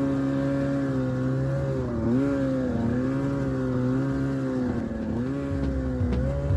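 2002 Ski-Doo MX Z 800's Rotax twin-cylinder two-stroke engine running at a fairly steady speed, its pitch dipping briefly and picking back up about two seconds in and again near the end as the throttle eases and reopens. A few light knocks come near the end.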